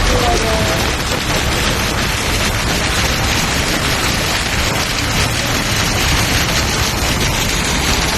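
Steady, loud hiss of heavy rain and water, with a low rumble underneath.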